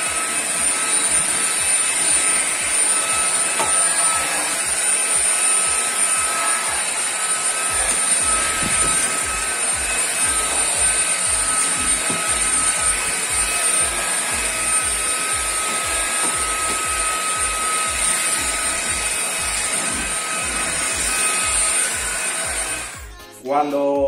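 Cecotec Conga Rockstar 500 X-Treme cordless stick vacuum running at its top suction setting: a steady high-pitched whine over a rush of air as it is pushed over a tiled floor. It switches off near the end.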